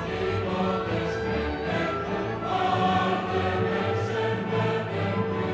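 Background music with choral singing: sustained choir voices over held notes.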